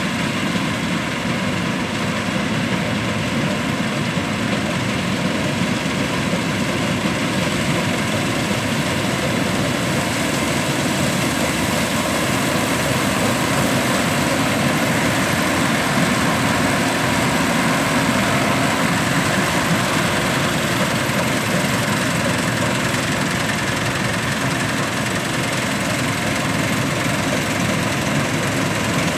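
New Holland combine harvester running steadily while cutting and threshing rapeseed: a heavy engine drone with the noise of its machinery, growing a little louder through the middle as it comes closer.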